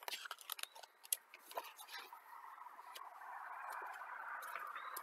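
Faint rustling and clicking of a picture book's pages being handled and turned: scattered sharp ticks, then a soft, slowly swelling paper rustle.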